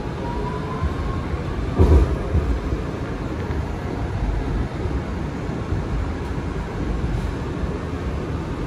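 Kawasaki R211A subway train running along the track with a steady rumble of wheels on rail. A faint rising whine comes in the first second, and a single sharp knock about two seconds in is the loudest moment.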